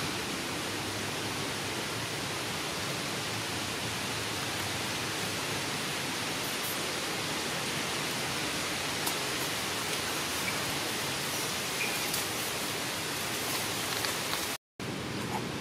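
A steady, even hiss with no distinct events, broken by a split-second gap of silence near the end.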